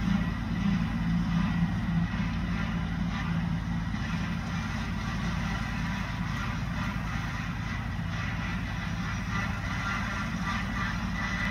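Compact tractor engine running steadily as it pulls a bush hog (rotary cutter) across a field, with a faint steady whine above the low hum. It grows slightly fainter as the tractor moves away.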